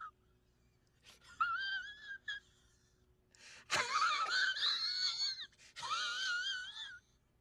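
High-pitched wavering squeal in three bursts, the middle one loudest and rougher, each rising and falling in pitch.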